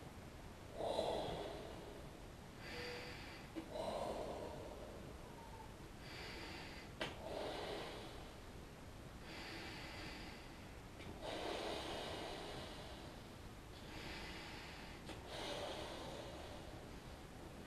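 A person breathing loudly in and out with their mouth at a large balloon held in front of the face, one breath about every two seconds. A single sharp click comes about seven seconds in.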